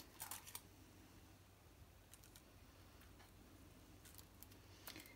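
Near silence with a few faint ticks and light crinkles: fingers handling a plastic milk bottle and pressing a square of tissue paper onto its glued side.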